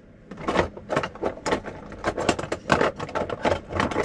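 Cutlery and utensils clattering in a kitchen drawer being rummaged through: a quick, irregular run of clinks and knocks.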